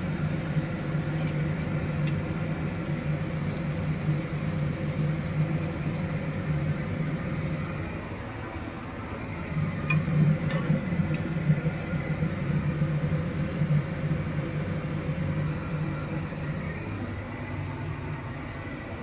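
Steady electric hum of a kitchen appliance motor such as a fan, with a few faint clicks about halfway through.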